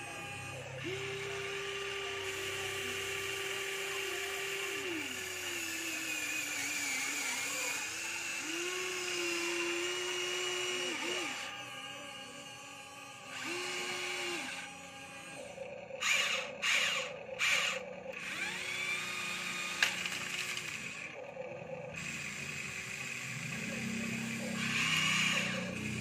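Small electric motors of Huina radio-controlled construction toys whirring in short runs, starting and stopping repeatedly, their pitch sagging and recovering. Three brief louder noisy bursts come about two-thirds of the way in.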